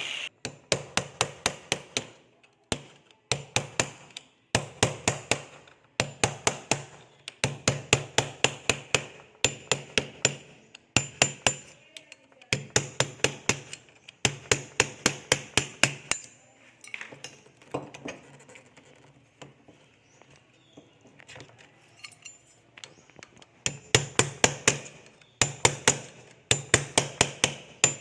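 Hammer blows in quick runs of several strikes, about five a second, with short pauses between runs and a quieter few seconds past the middle: hammering during a door repair.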